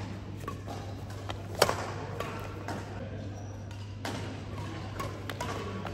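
Badminton rally: rackets striking a shuttlecock, with one sharp crack about a second and a half in as the loudest hit and lighter hits around four and five seconds in. A steady low hum runs underneath.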